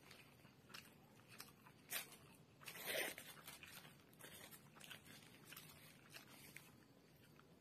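Paper wrapper on an egg roll being crinkled and torn off by hand: scattered light rustles and clicks, with one longer, louder tear about three seconds in.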